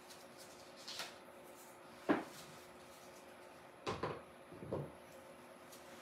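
A few light knocks and clicks of craft tools and stems being handled and set down on a tabletop. The loudest comes just after two seconds in, and a quick cluster of three follows around four to five seconds.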